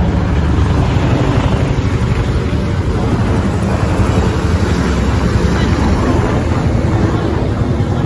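A formation of military helicopters flying low overhead: a loud, steady rotor thrum and engine noise, heavy in the low end.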